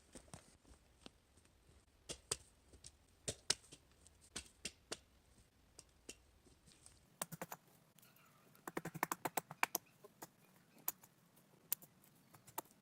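Faint, irregular light clicks and taps, with a quick run of them about eight to ten seconds in.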